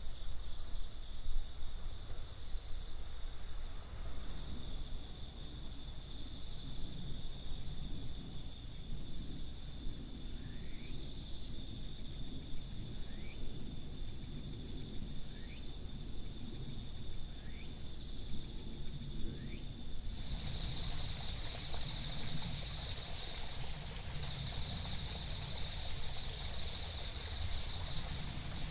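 Night chorus of crickets, with one steady high trill throughout, taken for bell crickets (suzumushi). A second, pulsing insect song stops a few seconds in, and a few faint short rising chirps come through in the middle. About two-thirds of the way through, a soft wide hiss joins the chorus.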